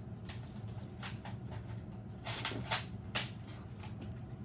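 A handful of short, sharp clicks and knocks, the loudest three a little past halfway, over a steady low room hum.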